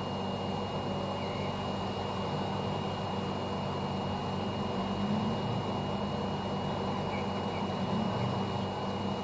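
Hot-air rework station blowing steadily on a phone's circuit board to desolder the charging connector: an even rushing hiss with a low hum and a thin, steady high tone.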